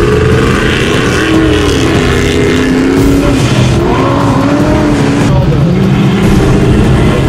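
Ultra4 off-road race car engines revving, their pitch rising and falling, loud and continuous. About five seconds in the sound changes to a steadier, lower engine note.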